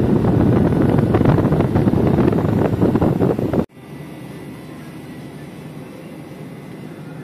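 Condenser fan of a Taylor soft-serve machine running behind its wire guard, a loud steady rush of air across the microphone. It cuts off abruptly about three and a half seconds in, leaving the quieter steady hum of the machine running.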